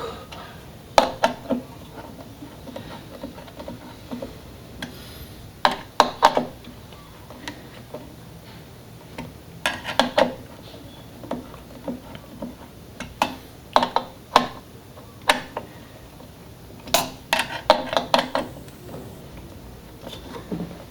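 Irregular sharp clicks and light metallic taps, coming in small clusters of two or three, from PC hardware and cooler parts being handled and set down.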